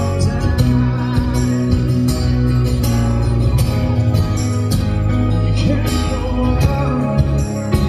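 Live band music: acoustic guitars strummed in a steady rhythm, amplified through a PA, with a male voice singing at times.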